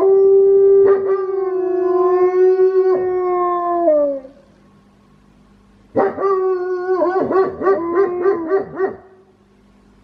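Wolfdog howling: one long, steady howl of about four seconds that drops in pitch at the end, then after a two-second pause a second howl that breaks into a rapid, wavering warble before stopping.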